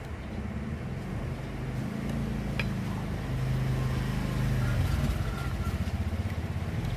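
A low, steady mechanical hum that grows gradually louder, its pitch stepping down a little about halfway through.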